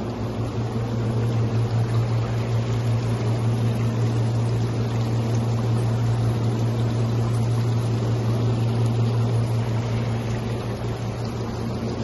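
A steady low mechanical hum with an even rushing hiss over it, like running machinery.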